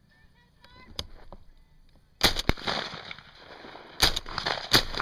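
Shotgun shots at passing doves. Two come in quick succession a little after two seconds in, and two more come between four and five seconds, each followed by a rolling echo.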